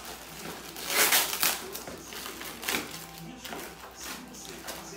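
Plastic packaging crinkling and rustling as it is unwrapped by hand, with the loudest rustle about a second in and another shorter one partway through.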